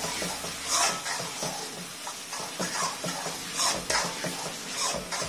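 A spoon stirring and scraping thick masala paste around a metal kadai in irregular strokes.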